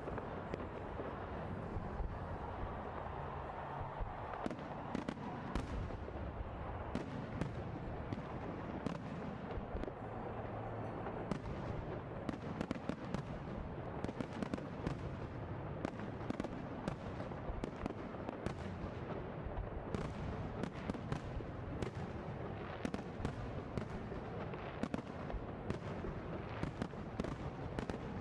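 A fireworks display: a dense, continuous barrage of bangs and crackles, with many sharp reports over a steady rumble.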